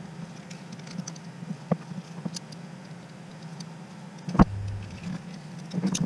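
Light clicks and scrapes of a snap-off utility knife cutting the outer jacket of LMR400 coax cable, with one louder knock about four and a half seconds in. A steady low hum runs underneath.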